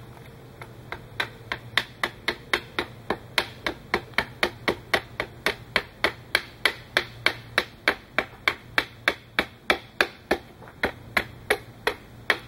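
Hatchet hewing a wooden stave held upright on a chopping stump: quick, even chops of about three a second, each a sharp crack, starting about a second in.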